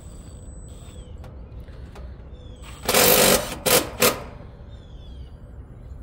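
Cordless drill/driver spinning about three seconds in for half a second, then two short blips, driving in a screw.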